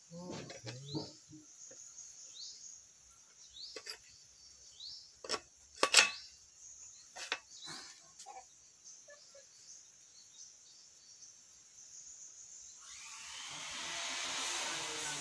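Metal clicks and clinks of a wrench on a motorcycle's front axle bolt, with sharper knocks about five and six seconds in. From about thirteen seconds in, a rising whirring hiss as the front wheel is spun by hand.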